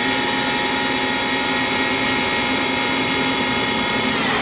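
SNK SUT-50 CNC turning center's spindle running steadily at 2,500 RPM, a steady whine with several fixed tones. Near the end the pitch starts to fall as the spindle begins to slow down.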